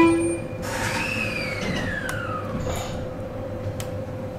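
ET127 series electric train's drive equipment whining as the train moves off in reverse, the pitch rising briefly and then sliding down over a second or so, over a steady electrical hum. A short buzzer-like tone sounds right at the start.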